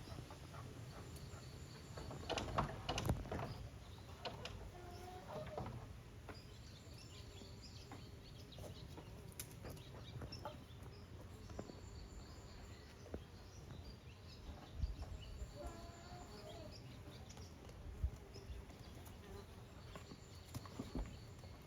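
Quiet goat-pen sounds: scattered knocks and shuffles from goats moving about, loudest in a cluster about two to three seconds in, with a few short soft calls and faint birds chirping.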